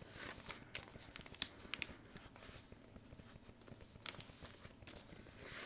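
A sheet of paper rustling and crinkling as a paper-airplane wing is folded and creased, with a few sharp crackles.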